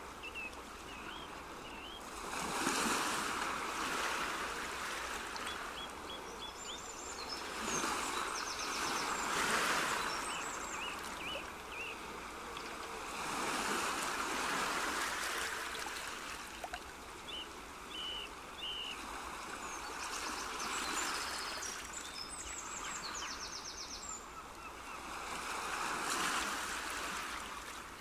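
Nature ambience: rushing water that swells and fades about every five or six seconds, with birds chirping and trilling over it.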